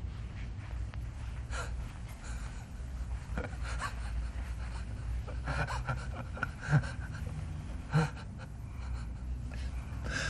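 A person's quiet breathing and short gasps over a steady low hum, with two sharper short sounds about seven and eight seconds in.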